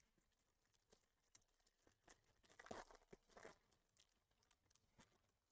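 Faint crinkling, rustling and small clicks of trading cards and a pack wrapper being handled. The rustling is loudest about two and a half to three and a half seconds in.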